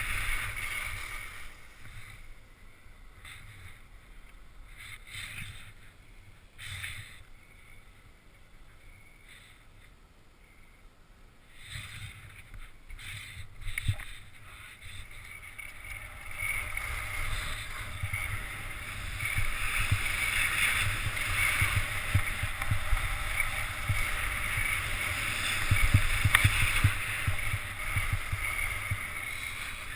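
Skis sliding and scraping over packed snow, with wind rushing over the camera's microphone. Quieter for the first ten seconds or so, louder from about twelve seconds in.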